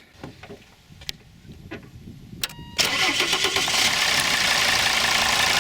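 A few faint clicks, then just under three seconds in the Mercedes W210 270CDI's five-cylinder turbodiesel is cranked, starts abruptly and runs steadily at idle.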